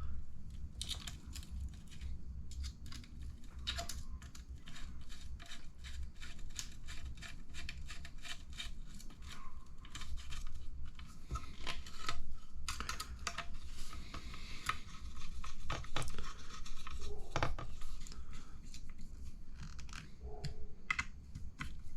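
Hand-driving small screws into aluminum RC buggy bulkhead parts with a hex driver, with small metal parts handled on a table: irregular light clicks and scratches, over a steady low hum.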